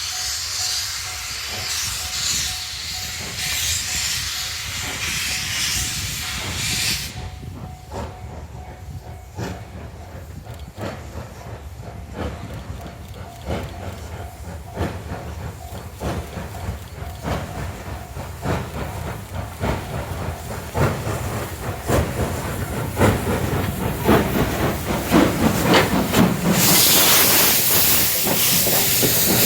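Steam locomotive C57 1 letting off a broad hiss of steam, then working with a run of short exhaust beats, and near the end a loud hiss of steam again.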